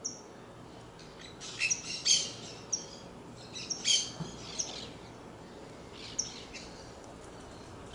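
Saffron finch (canário-da-terra) calling: short, sharp, high chirps in irregular bursts, with the densest, loudest runs about two and four seconds in and a lone note near six seconds.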